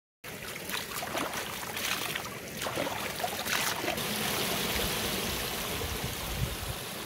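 Shallow stream running over rocks, with hands scooping and splashing in the water several times in the first four seconds, then steady rushing water.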